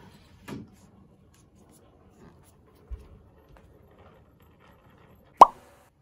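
A few soft thumps of bare feet on a wooden floor, then a single loud, sharp knock that rings briefly, about five and a half seconds in.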